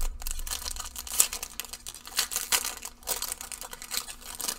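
A Magic: The Gathering booster pack's foil wrapper crinkling and tearing as it is opened by hand, a dense run of crackles with a sharper snap about a second in.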